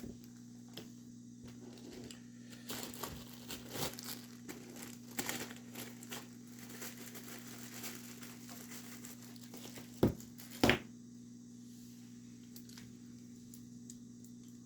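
Paper rustling and crinkling as art materials are handled, over a steady low hum, with two sharp knocks in quick succession about ten seconds in.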